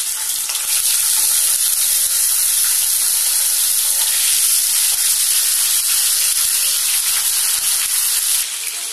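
Fish sizzling in hot mustard oil as it shallow-fries in a pan, a steady crackling hiss that swells a little about a second in as more pieces are laid in, then eases slightly near the end.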